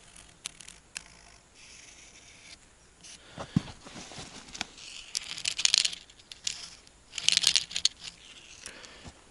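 Light handling noise at a log: scattered small clicks and rustles, with two short bursts of scratching about five and seven seconds in.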